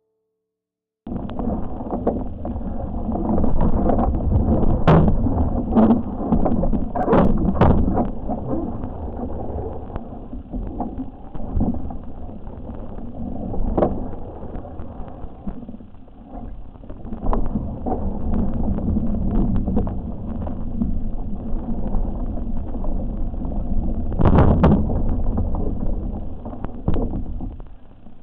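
Strong gusty wind buffeting the microphone and water rushing and slapping along the hull of a small RS Aero sailing dinghy under way, starting abruptly about a second in. Sharp knocks or splashes cut through it several times.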